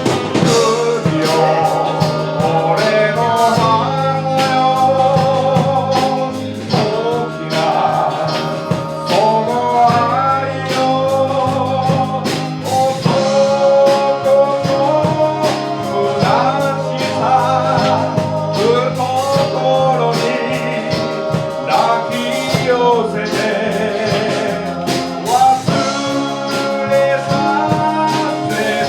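Live band music with a male singer, backed by guitar and drums.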